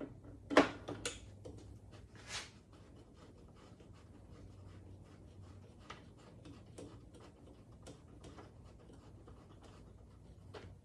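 Hand tools working the bolts of a Dodge M37 windshield frame: a few sharp metal clicks at the start, a short rasp a little after two seconds, then faint scattered ticks.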